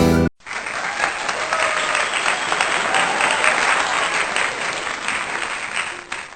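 Guitar background music cuts off, then a crowd applauds with a few voices mixed in, fading away at the end.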